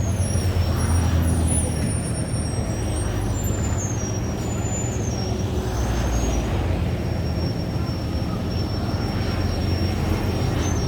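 Engines running with a steady low drone, with faint thin high whistling tones above it.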